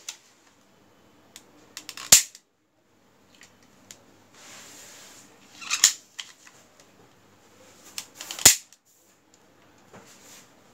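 Plastic Walther P38 replica gas lighter being worked by hand: three sharp clicks from its slide, hammer and trigger mechanism, about three seconds apart, with small handling ticks between them and a soft hiss lasting about a second between the first two clicks.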